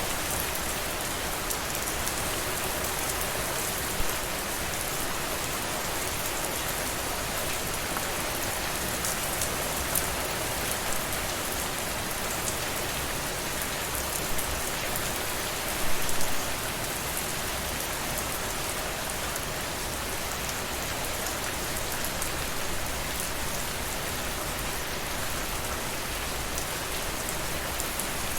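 Steady rainfall: a dense, even hiss of rain on a surface with scattered individual drops. A few louder drops or splashes stand out, the loudest a brief cluster a little past the halfway point.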